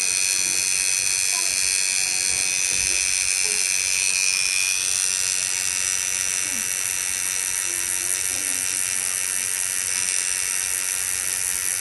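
Electric tattoo machine buzzing steadily as its needle works on skin, a high-pitched continuous buzz whose tone shifts slightly about four and a half seconds in.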